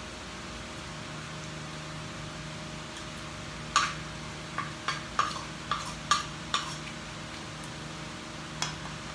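Metal spoon clinking and scraping against a ceramic bowl while eating: a quick run of sharp clinks starting about four seconds in, the first the loudest, and one more near the end, over a steady low hum.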